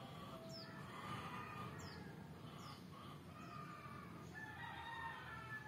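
A rooster crowing faintly, with one long held call starting a little past the middle. Short, high, falling bird chirps repeat about once a second throughout.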